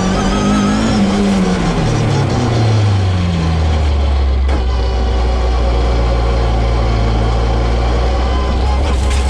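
Millington 2.5-litre four-cylinder race engine in a Mk2 Ford Escort, its revs dropping in steps over the first four seconds as the car slows. It then runs steady at low revs.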